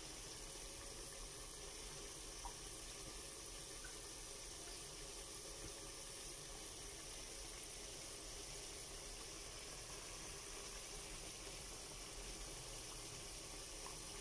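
Chopped pork simmering steadily in its own liquid in an aluminium pot, a faint, even bubbling hiss.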